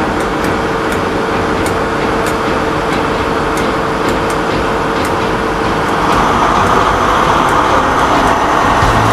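Class 43 HST power car's diesel engine running close by: a loud, steady hum with a held whine, which gives way to a higher-pitched rushing about six seconds in.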